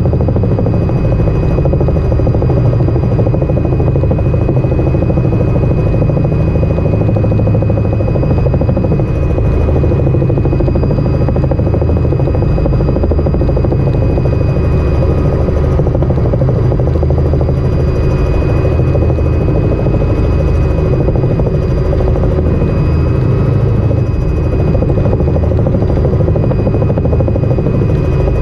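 Helicopter in steady flight heard from inside the cabin: an even, loud drone of rotor and engine with a thin steady whine above it.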